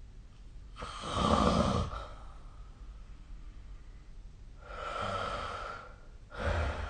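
A sleeping person's heavy, noisy breathing: a loud breath about a second in, a softer, longer one around five seconds in, and another loud breath starting near the end.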